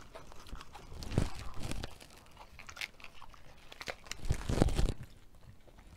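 Crisp lettuce leaf crinkling and crunching as it is picked up and handled, mixed with chewing, in several short bursts with the loudest cluster near the end.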